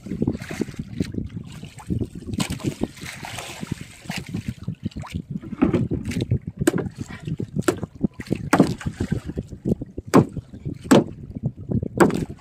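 Irregular knocks and thumps on a small fishing boat, some sharp and loud, over a low steady rumble, with a short rush of noise about three seconds in.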